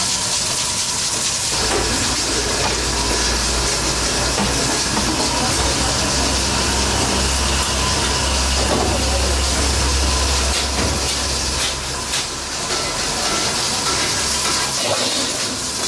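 Steady hiss of steam from a row of pressure cookers on gas burners, with a low rumble underneath from about a second and a half in until near the end.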